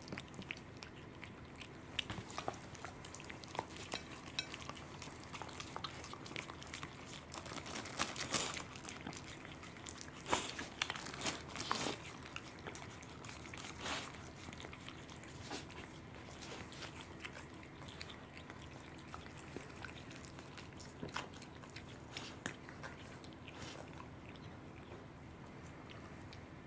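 A cat chewing raw salmon close up: soft wet chewing with many short, sharp clicks, thickest in a run from about a third of the way in to just before the middle.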